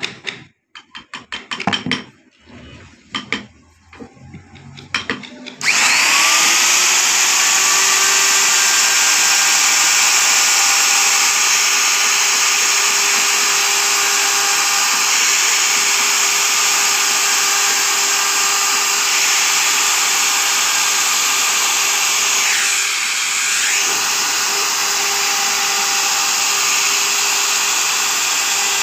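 Electric plunge router: a few clicks and knocks, then about six seconds in the motor starts and spins up to a steady high-pitched whine as the bit cuts a relief carving into wood. Later on the sound briefly dips as the load on the bit changes.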